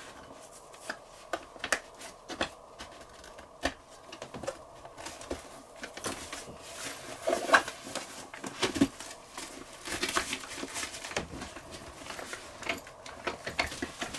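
A collapsible fabric cat-carrier rucksack on wheels being unfolded and set up by hand: scattered clicks and knocks of its frame and fittings, with fabric rustling, and a few louder knocks in the second half.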